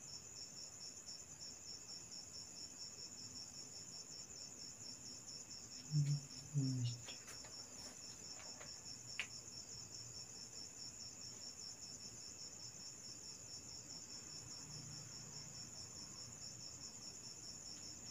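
A cricket chirping in a high, evenly pulsing trill that does not let up. About six seconds in there are two brief, louder low sounds.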